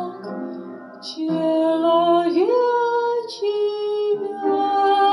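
A woman singing a slow Russian song into a handheld microphone, drawing out long held notes, with a smooth upward slide to a higher held note about two and a half seconds in.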